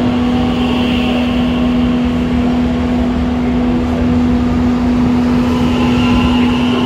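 A train in the station giving off a steady low hum on one held pitch, over a rumbling noise.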